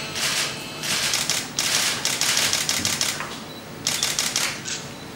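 Many press camera shutters firing in rapid bursts of clicks, several bursts overlapping and starting and stopping over a few seconds.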